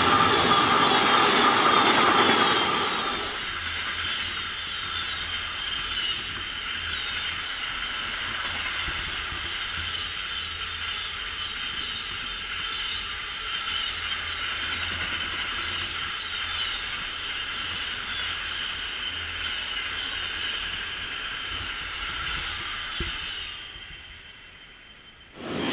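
Container freight train rolling past: loud rushing for about the first three seconds, then a steady rumble of the wagons with a high, steady squeal from the wheels, fading away near the end.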